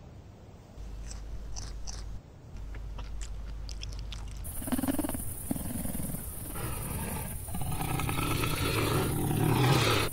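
A snow leopard growling, starting about halfway through with short growls and building to a loud open-mouthed snarl near the end.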